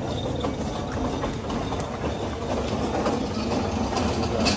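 Steady low hum of refrigerated freezer cases and store ventilation, with a few light knocks, the loudest near the end, as a glass freezer door is opened and a cardboard box of frozen fish is lifted out.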